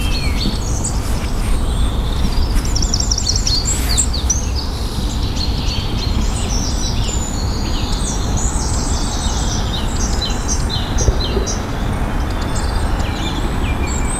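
Many small birds singing and chirping, short calls and trills overlapping throughout, over a steady low rumble.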